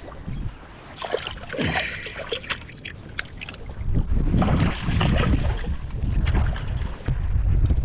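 Wind buffeting the microphone, growing much stronger about halfway through, over small waves lapping among rocks at the water's edge, with a scatter of short clicks and knocks.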